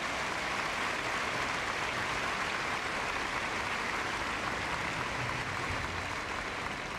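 Arena audience applauding, a steady din of many hands clapping that eases slightly near the end.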